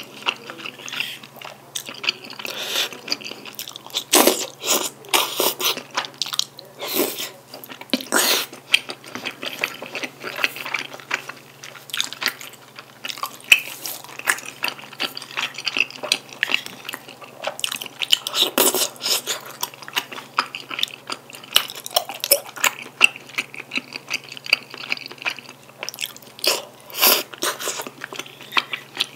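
Close-miked chewing and wet mouth sounds from eating chewy rice cakes, wide glass noodles and bacon in black bean sauce. Irregular short smacks and clicks go on throughout, a few of them louder.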